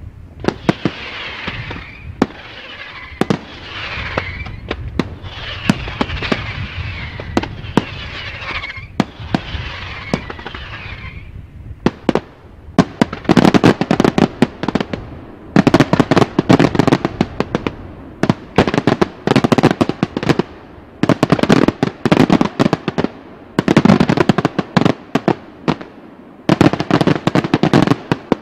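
Daytime aerial fireworks. In the first part, repeated shell bursts come with falling hissy tails. From about twelve seconds in, rapid volleys of many sharp cracks from small salutes go off in clusters of a second or two, with short pauses between.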